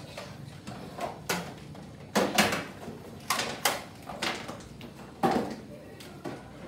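A series of sharp plastic clacks, several in quick pairs, from Nerf foam-dart blasters being handled, primed and loaded.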